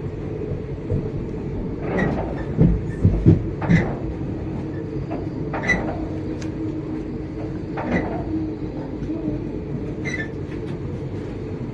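Passenger train running, heard from an open coach doorway: a steady low rumble with a string of sharp knocks and rattles from the wheels and coach, the loudest a few seconds in.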